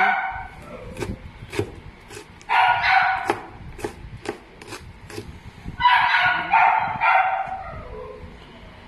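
Kitchen knife chopping fresh ginger on a cutting board, a run of sharp taps on the board. A dog barks over it, once about two and a half seconds in and three times in quick succession about six seconds in.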